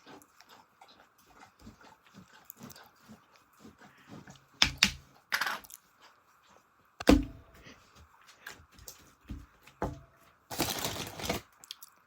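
Slime with crunchy bits being squished and poked by hand: many small sticky clicks and pops, a few louder crackles, and a short rustling burst near the end.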